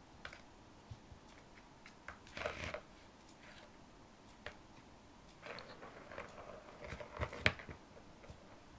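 A ball rattling and rolling in a Catit Design Senses Play Circuit plastic track toy as a cat bats at it: scattered light clicks, a short clatter about two and a half seconds in, then a run of knocks and rattles in the second half with one sharp knock near the end.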